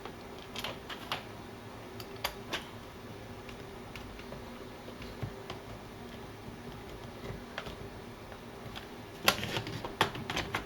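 Scattered light clicks and taps of a small Phillips screwdriver and plastic parts being handled on the underside of a laptop. A louder cluster of clicks and knocks comes near the end.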